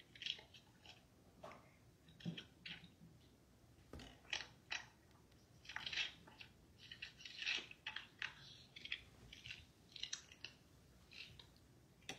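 Faint, irregular rustling and crackling handling noises: short scratchy bursts, about a dozen, spread through, as things are moved about on a table.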